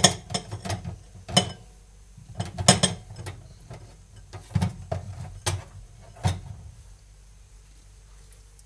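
Irregular clicks and knocks of hard kitchen items being handled, with louder knocks about one and a half, three, four and a half, five and a half and six seconds in. A low rumble under them stops near seven seconds.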